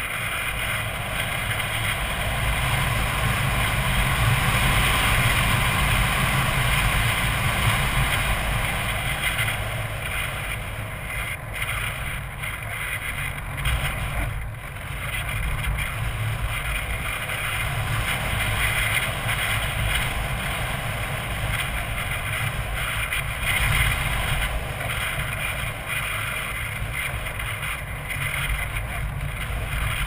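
Wind rushing over the onboard camera microphone of a radio-controlled foam plane in gusty flight, over the hum of its electric motor and propeller. The rush swells and dips throughout.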